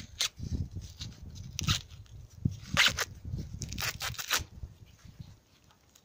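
Green husks being torn off an ear of sweet corn by hand: a few short tearing strokes, the loudest about three and four seconds in.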